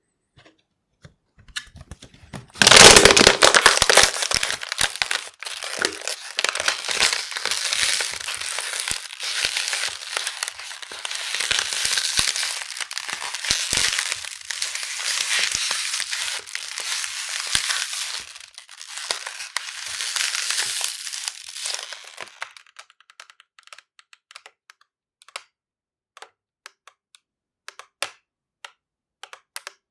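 Plastic bottle being squeezed and crushed by hand: a dense run of crinkling and cracking, loudest in a burst about three seconds in and going on for some twenty seconds, then tailing off into scattered single clicks and pops as the plastic springs back.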